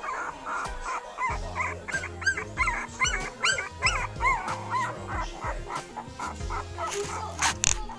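Puppies yipping and whimpering in many short, high cries that rise and fall, over background music with a steady bass line.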